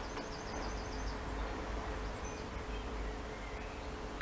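Quiet outdoor background with a steady low hum, and a quick run of about eight short high chirps in the first second.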